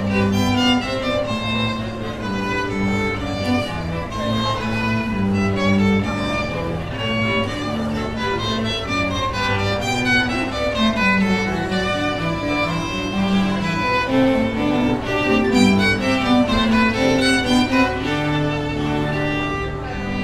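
Classical music played by bowed strings: a violin melody over cello and lower strings, the notes changing continuously.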